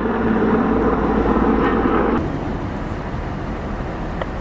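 Fire engine's diesel engine running steadily, a heavy, dense rumble that cuts off abruptly about two seconds in. A quieter, steady rushing noise follows.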